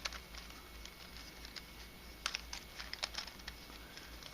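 Light clicks and scrapes of a 3D-printed nylon twisty puzzle's pieces being turned and jumbled by hand, with a couple of sharper clicks about two and three seconds in.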